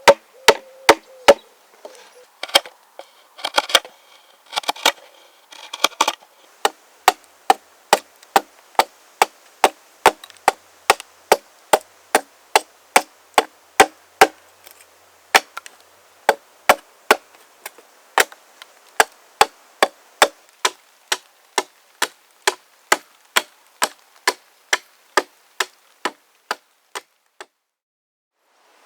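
Axe striking wood in a steady rhythm of about two sharp strokes a second, with a crackle of splitting fibres between some of the early strokes; the chopping stops shortly before the end.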